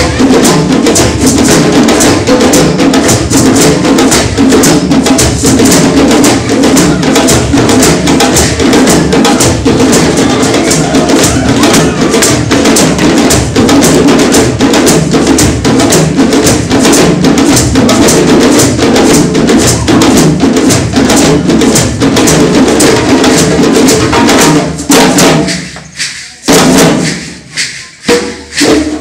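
West African drum ensemble of djembes and dunun bass drums playing a dense, fast rhythm. About 25 seconds in, the full ensemble drops out, leaving a few separate strokes with gaps between them.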